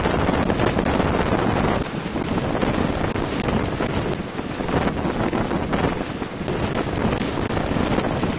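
Category 4 hurricane eyewall wind, with wind-driven rain, buffeting the microphone in a dense, loud rush that rises and falls in gusts. There is a brief dip about two seconds in.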